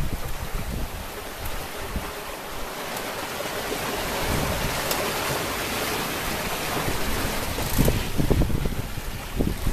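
Sea water rushing and breaking along the hull of a Seastream 43 cutter yacht under sail in open-ocean swell. Wind buffets the microphone in gusts, hardest about eight to nine seconds in.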